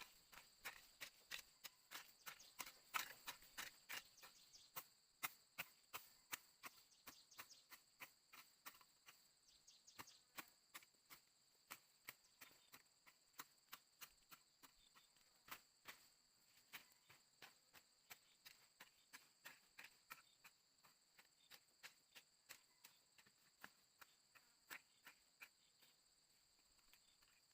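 A long run of light, sharp knocks or taps, about two or three a second, over a steady high-pitched insect buzz.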